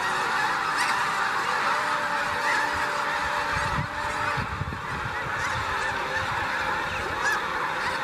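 Dense chorus of honking from a huge flock of snow geese lifting off and circling, thousands of short calls overlapping into one continuous clamour.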